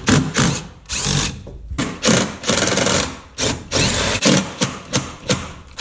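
Handheld power tool, such as a drill or driver, run in a series of short, irregular bursts, typical of driving fasteners in and out while stripping a car.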